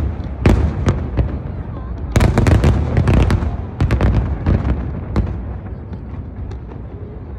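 Fireworks display: aerial shells bursting in rapid clusters of sharp bangs and booms, thinning out after about five seconds.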